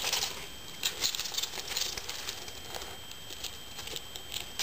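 Young green-cheeked conures feeding: a patter of small irregular clicks and scratchy ticks from beaks and feet.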